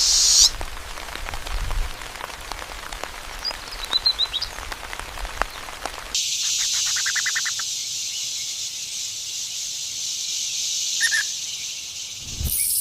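A few short bird chirps over crackling, rain-like noise. About six seconds in, this gives way abruptly to a steady snake hiss lasting about six seconds.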